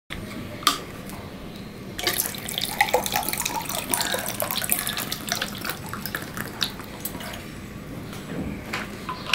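Water poured from a plastic bottle into a drinking glass: a splashing, trickling pour starting about two seconds in and lasting roughly three seconds. There is one sharp click about a second in.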